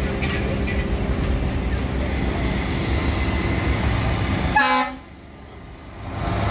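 Diesel tractor-trailer haulers running past in a steady low rumble, with a short air-horn toot about four and a half seconds in. The rumble then drops away suddenly for about a second before building back.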